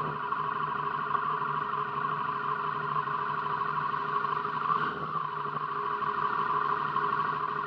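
Steady, unchanging drone of a running vehicle, with a constant low hum and a stronger steady tone higher up; no rise or fall as of anything passing by.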